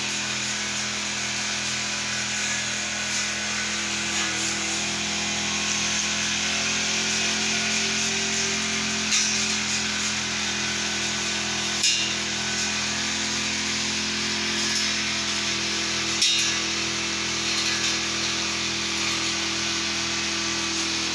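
Four-stroke brush cutter engine running steadily at working speed while cutting grass, with three brief sharp clicks spread through.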